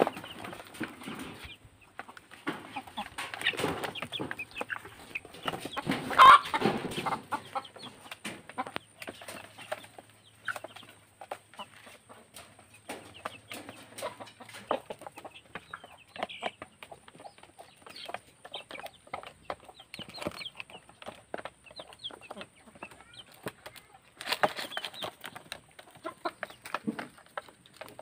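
A flock of chickens clucking while pecking at feed in a plastic basin: many quick small taps throughout, with louder spells of clucking a few seconds in and again near the end.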